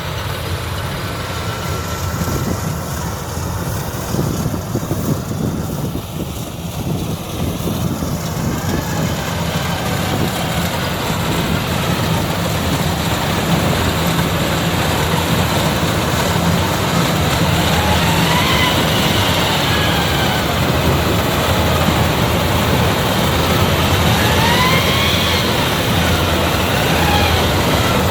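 Rice combine harvester's engine running steadily under load, with short high rising-and-falling whistles over it in the second half.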